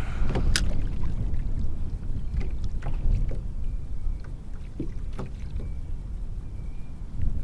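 Kayak on the water: a steady low rumble with scattered light clicks and knocks.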